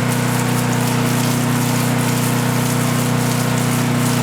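A motor-driven water pump runs with a steady hum while water sprays or gushes under it, evenly throughout, as for washing something down.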